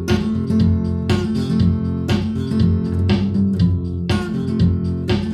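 Instrumental guitar passage: strummed acoustic guitar chords, with about two strokes a second over sustained low notes.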